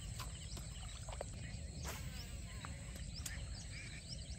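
Outdoor pondside ambience: a steady low rumble with faint bird chirps and a couple of sharp clicks.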